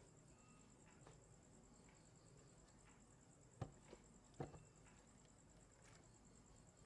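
Near silence: quiet room tone with a faint, steady high-pitched trill, and two light knocks a little under a second apart about halfway through.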